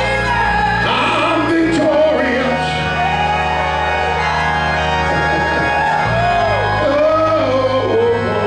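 A man singing a gospel song into a microphone in long, wavering notes, over held keyboard chords whose bass note changes about two seconds in and again about six seconds in.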